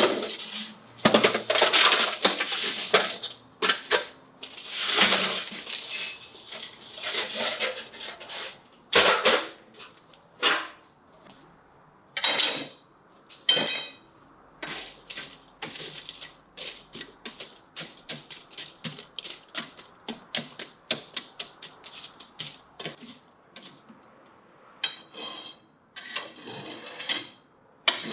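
Metal shashlik skewers clinking and knocking as they are handled and laid over the grill, in irregular strokes with some ringing metallic chinks, and rustling handling noise in the first few seconds.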